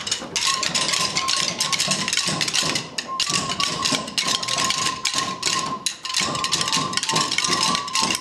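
A group of children beating drumsticks on upturned plastic buckets, a dense, fast clatter of many overlapping strikes.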